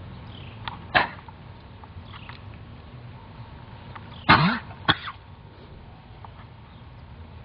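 Horse coughing: one short cough about a second in, then a louder cough followed by a second one half a second later, a little past halfway.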